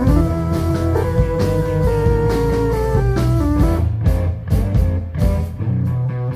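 Live rock band playing an instrumental passage: electric guitar, bass guitar and keyboard, with held notes changing about every second, recorded roughly from the room.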